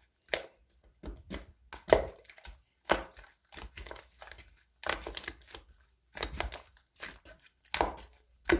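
Irregular crinkling and crunching noises in short bursts, roughly one or two a second.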